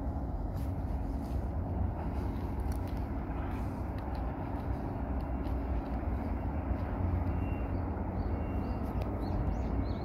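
Steady outdoor ambience dominated by a constant low rumble, with no distinct events standing out.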